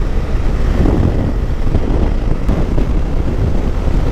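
Suzuki V-Strom 800DE's parallel-twin engine running at road speed under steady wind rush on the rider's microphone.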